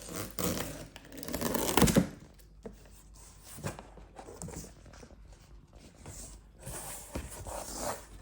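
Cardboard box being opened by hand: tape and flaps tearing and rustling, loudest in the first two seconds, then a few short knocks and a longer rustle near the end.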